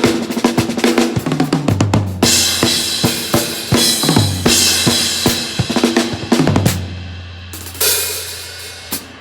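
Drum kit played in a sound check: a busy beat of kick drum, snare and cymbals that thins out after about seven seconds to a few single hits, with a low tone ringing underneath.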